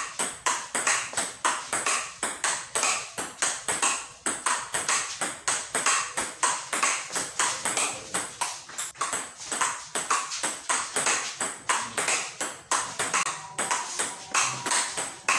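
Table tennis rally: a celluloid-type ball clicking off rubber-covered bats, one of them a Yinhe M101 carbon blade, and bouncing on the table in quick alternation, several sharp impacts a second.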